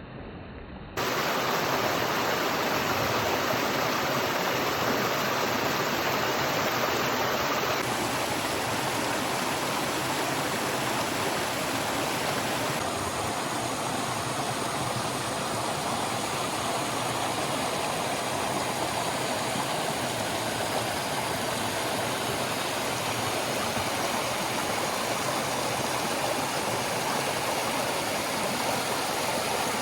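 Steady rush of a rainforest stream's flowing water, starting suddenly about a second in.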